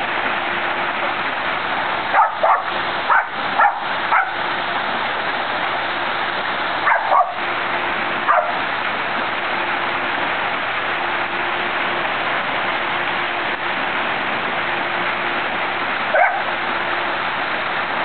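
West Highland white terrier giving short barks over the steady rush of a rock waterfall: a quick run of five about two seconds in, three more around seven to eight seconds, and one near the end.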